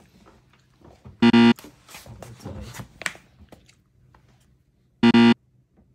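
A short, loud pitched tone sounds twice, identical each time, about four seconds apart.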